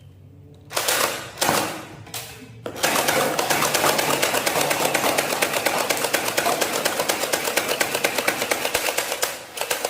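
Toy M249 machine gun firing on full auto: three short bursts, then one long rapid mechanical clatter of about seven seconds that stops near the end.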